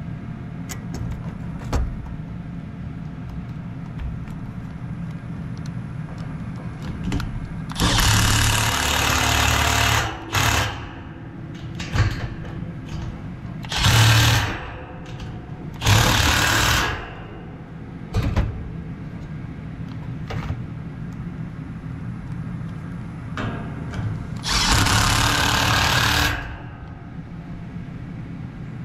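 Cordless impact driver, a Milwaukee M12, driving the screws that mount a replacement condenser fan motor to its fan guard. It runs in five bursts, most of one to two seconds and one very short, over a steady low hum.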